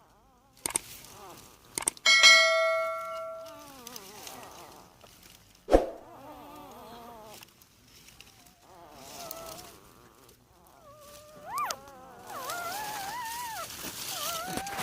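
Newborn puppies, eyes not yet open, whimpering and squeaking with short high cries that rise and fall. About two seconds in, a loud ringing ding fades out over a second or two.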